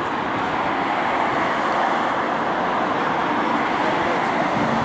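Ilyushin Il-76MD's four turbofan engines running as a steady jet noise during its landing roll-out, with a faint low hum coming in near the end.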